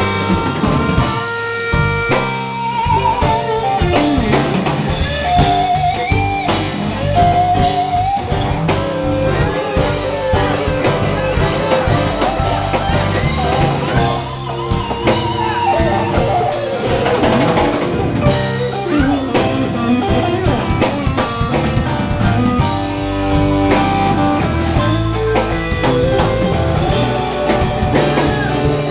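Live rock band playing an instrumental passage: electric guitar and bass guitar over a drum kit.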